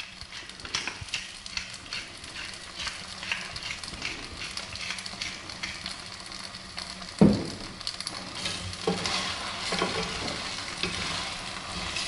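Linguine in tomato and scampi sauce sizzling in a pan while a pepper mill is ground over it, making a run of even crackles in the first few seconds. A single loud knock comes about seven seconds in, then the pasta is stirred with a wooden spatula near the end.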